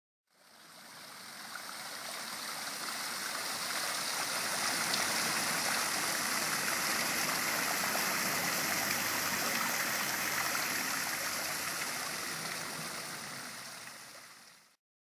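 Water cascading down a concrete rockery waterfall: a steady rushing splash that fades in at the start and fades out near the end.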